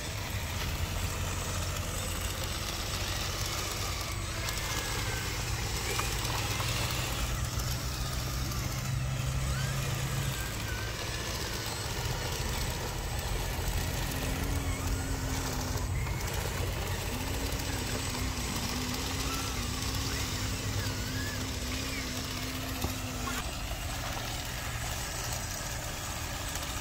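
Radio-controlled model tractor and bulldozer running as they push dirt: a steady mechanical drone with a low hum. A wavering tone joins about halfway through and stops a few seconds before the end.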